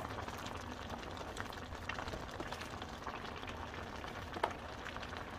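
Soy-braised pork backbone stew bubbling at a boil in a wide pan, a steady hiss of simmering broth with a few light pops.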